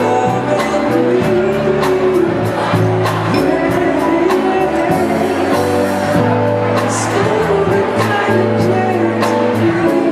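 Live band performing: a group of singers over keyboard and bass with a steady beat.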